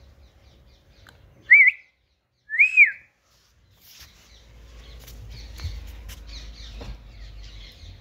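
Two short, loud, high whistled notes, the first wavering and the second rising and falling, then faint low background noise with small high chirps.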